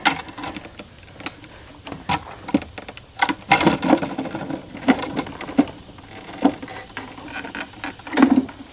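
Irregular knocks, clicks and rattles from the homemade spinning Rubik's Cube obstacle being climbed and turned, with a busier clatter about three and a half seconds in and a louder knock near the end.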